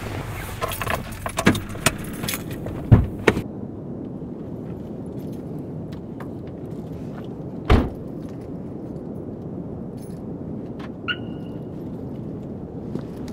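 Car keys jangling and rattling with clicks and a thump as the driver gets out of the car. About eight seconds in, a car door slams shut, and a few seconds later a short electronic beep sounds.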